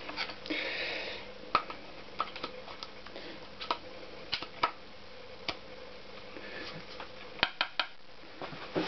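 Irregular sharp clicks and taps of a steel screwdriver against the piston rings and cylinder of a Honda CX500 engine as the rings are pressed into the bore, with a brief scrape about half a second in. A faint steady hum runs underneath.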